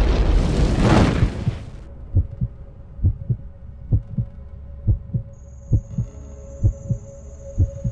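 Heartbeat sound effect: low double thumps a little under a second apart over a steady hum. It follows a loud rushing noise that fades out about two seconds in.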